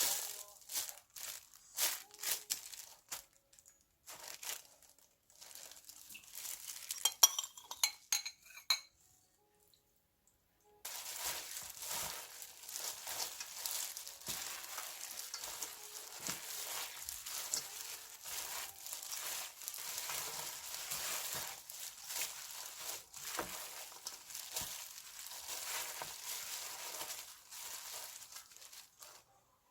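Cooking in a kitchen: knocks and a few ringing clinks of utensils and dishes, a short silence about ten seconds in, then food frying in a pan with a steady crackling sizzle.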